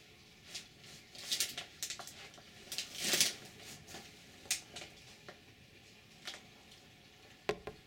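Scattered sharp clicks and taps, with a short rustle a little over three seconds in, over a faint steady hum: handling noise as the camera is moved around.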